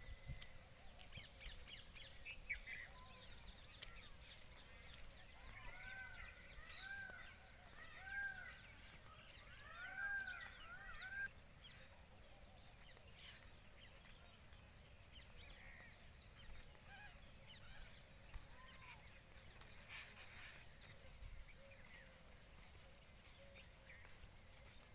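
Birds calling faintly in an open field, with scattered short chirps throughout and, midway, a run of short, repeated calls that each rise and fall in pitch.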